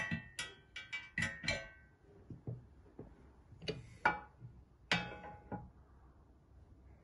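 Steel auger shaft and extension tube clinking and clicking as they are handled and slid together, with short metallic rings. There is a quick cluster of clicks in the first second and a half, then a few more clinks around the middle.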